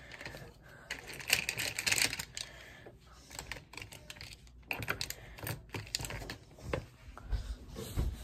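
Quick, irregular tapping and clicking close to the microphone, like typing, with a few duller knocks in the second half.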